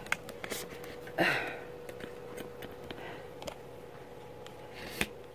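Handling noise from a phone on a selfie stick being adjusted: light scattered clicks and a brief rustle, with a sharper click near the end, over a faint steady hum.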